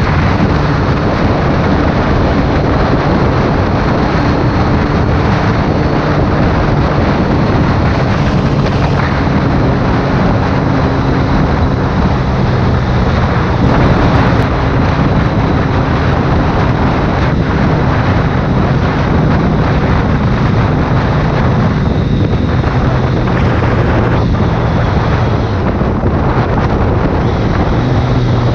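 Wind buffeting the microphone on a BMW K1300S ridden at cruising speed, over the steady running of its inline-four engine.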